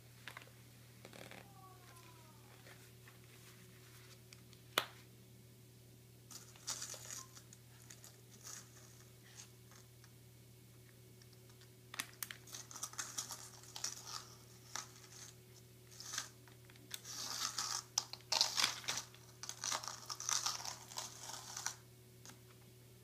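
Hands handling a fabric wallet and its metal chain strap: intermittent rustling and scraping, with a sharp click about five seconds in and busier handling in the second half. A faint steady hum sits underneath.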